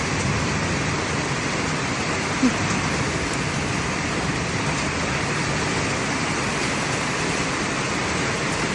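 Heavy rain mixed with hail pouring down in a storm, a steady dense hiss, with one brief sharp sound about two and a half seconds in.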